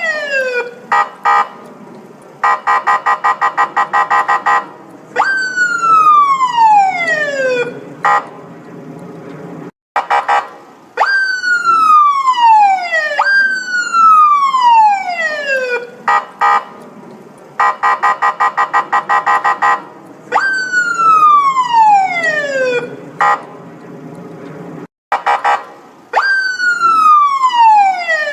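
Police car siren: repeated falling electronic sweeps, each dropping in pitch over about two and a half seconds, twice broken by a couple of seconds of rapid pulsed horn-like blasts and a few short blips.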